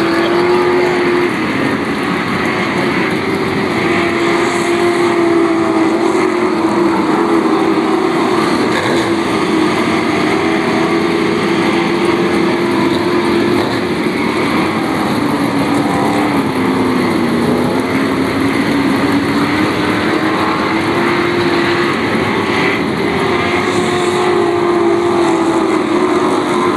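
Sportsman dirt-track race cars running at speed around the oval, their engines making a loud, steady drone. The pitch rises and falls as the cars lap the track, with a clear dip about two-thirds of the way through.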